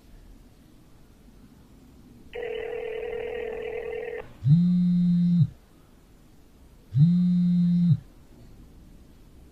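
Outgoing mobile phone call: a steady buzzing tone for about two seconds, then two ringback rings, each about a second long and two and a half seconds apart.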